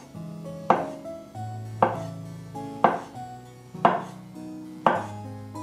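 Kitchen knife slicing through a peeled banana and knocking on a wooden cutting board, five sharp chops about a second apart, over background music.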